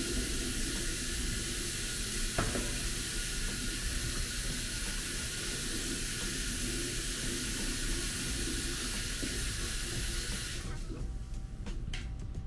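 Bathroom faucet running in a steady stream into the sink basin, turned off about two seconds before the end, followed by a few small clicks.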